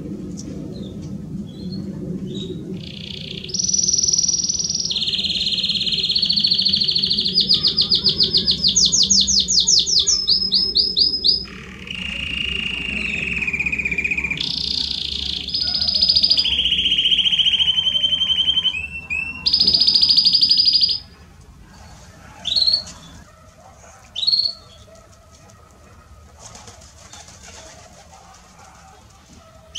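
Belgian canary singing a long song of trills and rolls, each held for a second or two at a different pitch, for about twenty seconds. The song breaks off, followed by two short single chirps.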